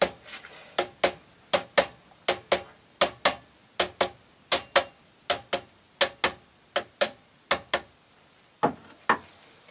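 Mechanical clicking from a Rock-Ola 443 jukebox's carousel drive as its small motor is turned to spin the carousel wheel. The clicks are sharp and come in pairs, about one pair every three-quarters of a second. They stop about eight seconds in, and two single clicks follow near the end.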